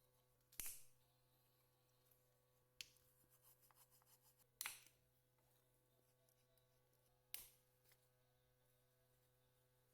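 Near silence broken by four faint, short clicks spread over about ten seconds.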